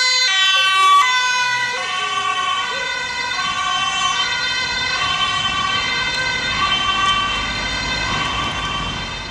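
Ambulance two-tone siren, alternating high and low. It is loudest about a second in, then fades slowly as the ambulance drives away.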